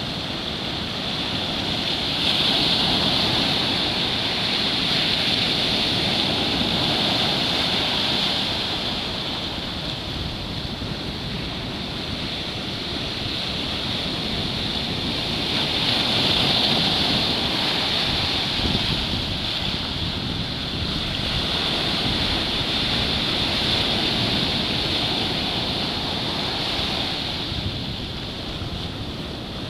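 Ocean surf breaking and washing in, a steady rushing that swells and eases as each set of waves comes through.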